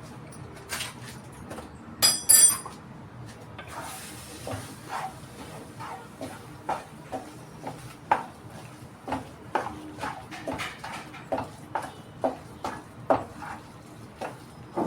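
A metal utensil clanging twice with a ringing tone against a metal pan, then knocking in it steadily about twice a second, as in mashing or stirring cooking food.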